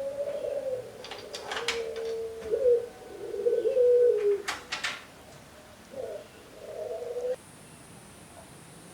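Doves cooing repeatedly in low, gliding calls. Two brief bursts of sharp clicking clatter come about one and a half and four and a half seconds in. The cooing cuts off abruptly near the end.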